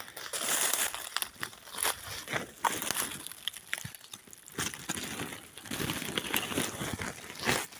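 Dry pine needles and forest litter crunching and crackling in irregular bursts, with many sharp little snaps.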